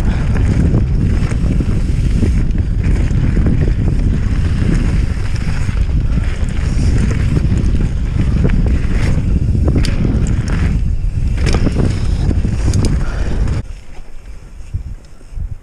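Wind rushing over the camera microphone as a mountain bike rides fast down a rough gravel track, with scattered sharp clicks and rattles from the bike over the surface. About 13.5 s in the rush drops away suddenly, leaving quieter rattling.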